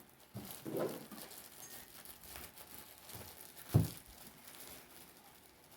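Hot cocoa mix packets being torn open and crinkled, with one sharp knock about four seconds in.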